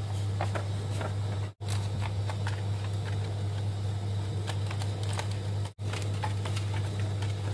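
Steady low hum, with soft rustling of sheets of paper being handled and laid over an LED floodlight board; the sound cuts out abruptly twice for a split second.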